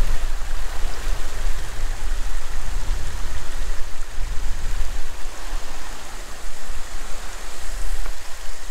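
Creek and waterfall water rushing in a steady hiss, with a deep rumble underneath.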